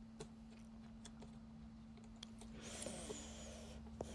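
Faint scattered clicks of jigsaw puzzle pieces being handled, over a steady low hum, with a soft hiss rising briefly about two and a half seconds in.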